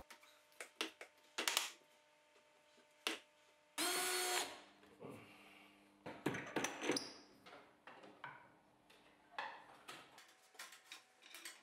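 A power drill-driver runs in one short burst about four seconds in, driving a screw. Around it are scattered clicks and knocks of wooden and metal parts being handled on the band saw.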